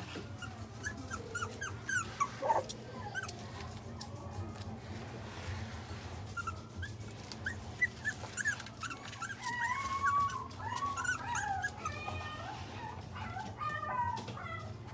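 Pomeranian–Shiba Inu mix puppy whimpering in many short, high-pitched squeaks, with a run of longer rising-and-falling whines about ten seconds in.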